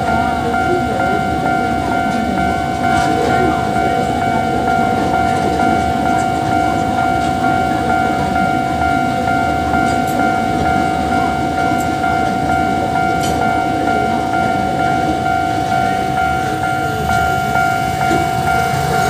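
Level-crossing warning signal sounding one steady tone over the low rumble of a narrow-gauge sugar-railway train passing, with a few sharp clicks from the wheels and rails.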